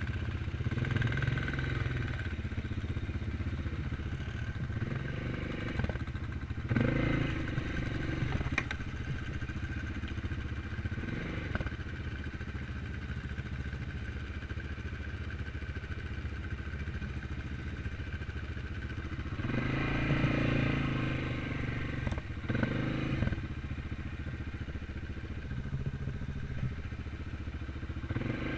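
Single-cylinder four-stroke ATV engines running as the quads ride over rough, grassy ground, with the engine note swelling louder a few times, most strongly about two-thirds of the way in.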